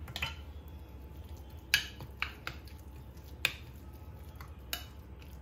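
Plastic spoon stirring wet, chopped-herb chimichurri in a glass bowl: a soft squelch of the mixture, with about six sharp clinks as the spoon knocks against the glass.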